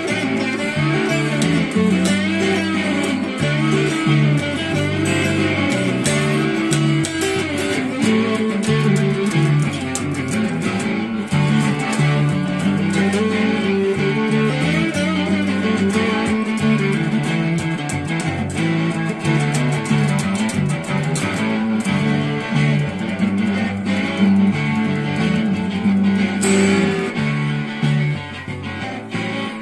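Electric guitar played through a tomato-sauce-can overdrive pedal, a repeating riff of notes and chords with an overdriven tone.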